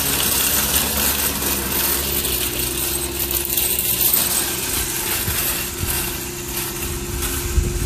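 Metal shopping cart rolling fast over asphalt, its wheels and wire basket rattling steadily over a low hum, with a few low thumps near the end.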